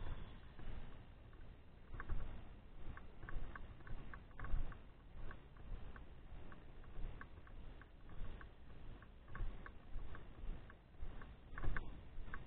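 Muffled low rumble with irregular sharp ticks and clicks: a bike-mounted action camera rattling in its mount as the dirt bike rides over rough grass.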